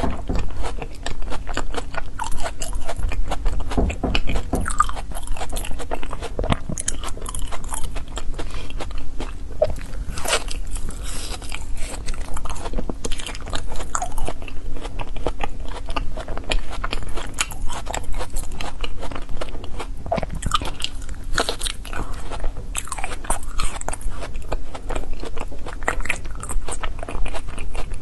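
Frozen foam ice being bitten and chewed close to the microphone: many quick, irregular crunches and crackles, one after another.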